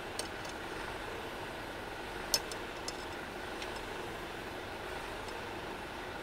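Portable camping stove burner running steadily under a frying pan of takoyaki, with a few sharp clicks of the pan and utensils, the loudest a little over two seconds in.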